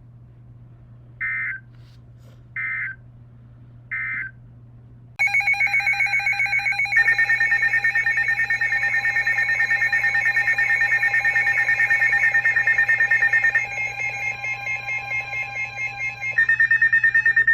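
Emergency Alert System tones on a weather radio broadcast. First come three short, evenly spaced bursts of digital data tones, the end-of-message code closing the previous alert. About a second later a loud, rapidly pulsing alert tone begins and runs for about twelve seconds, marking the start of a new warning.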